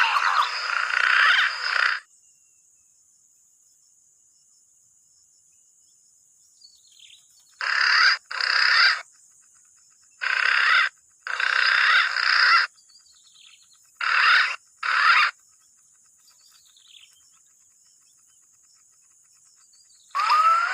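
Dense chorus of whistling bird calls in bursts that start and stop abruptly. Between the bursts there is near silence, with a few faint falling whistles.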